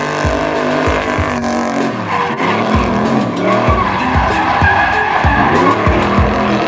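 Music with a steady beat, mixed with the tyre screech and engine of a Chevrolet pickup truck drifting.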